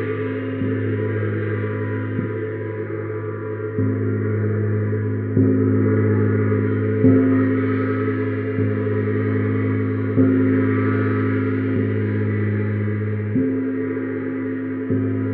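Neptune gong struck softly with a mallet about every second and a half, ten strokes in all, keeping up a continuous low, ringing drone that carries on between strokes.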